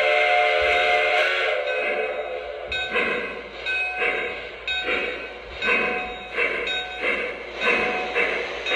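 Lionel Western Maryland Shay model steam locomotive's onboard sound system: a steady steam whistle that stops about a second and a half in, then rhythmic chuffing, about two chuffs a second, as the engine runs along the track.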